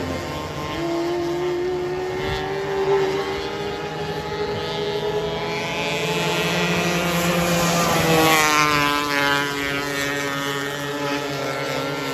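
Several micro sprint race cars' engines running at speed around a dirt oval. Their pitches rise and fall as they go through the turns, and the sound is loudest about two-thirds of the way through as one car passes close.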